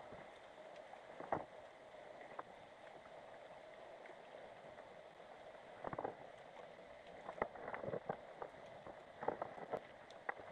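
Underwater ambience picked up by a GoPro in its waterproof housing on the seabed: a faint, steady hiss with scattered sharp clicks and knocks, which come more often over the last few seconds.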